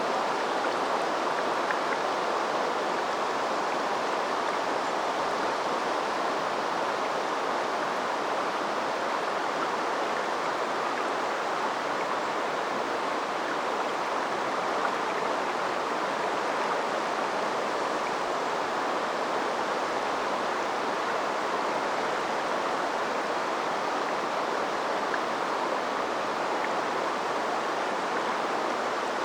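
River water flowing steadily over its bed, a continuous even rushing and babbling with no breaks.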